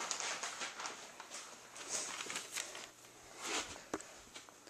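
Irregular paper rustling and handling noise, with a few light knocks.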